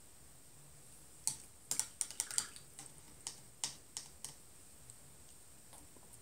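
Paintbrush being rinsed in a water jar, the brush clicking and tapping against the jar's sides in a quick irregular run of about a dozen sharp knocks, followed by a few faint taps.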